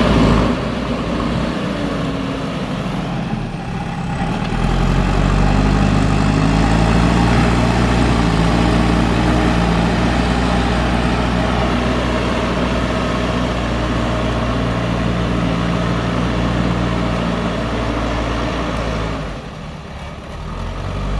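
JCB backhoe loader's diesel engine running under load while digging, steady and low, getting louder about four seconds in and easing off near the end.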